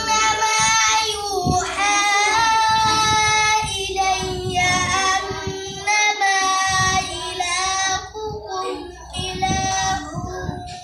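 A boy reciting the Quran aloud in the melodic chanted style of qira'at. He holds long notes with ornamented bends and pauses briefly between phrases.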